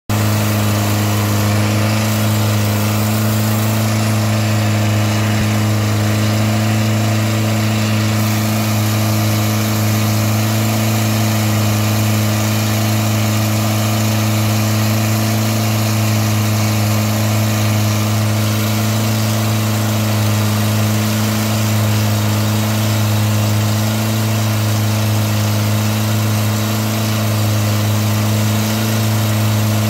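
Long-tail boat's large automotive engine running at a steady speed through its bare upright exhaust pipe, a loud low even note that holds its pitch, over the hiss of water rushing past the hull.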